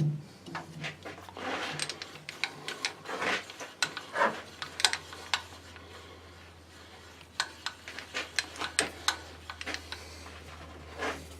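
Irregular clicks, ticks and creaks of a tap being turned by hand through tough steel, as it cuts and breaks its chips. A low steady hum comes in about four seconds in.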